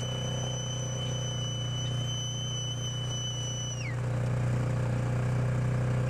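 Vehicle engine running steadily with a low hum as it drives slowly along a woodland track, a little louder from about four seconds in. A long steady high tone holds over it, then glides down and stops about four seconds in.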